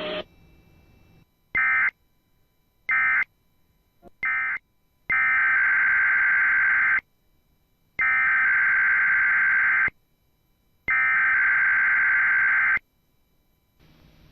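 Emergency Alert System SAME data bursts: three short end-of-message bursts closing one alert, then three longer header bursts opening the next. They are raspy digital tones, each burst about a second after the last.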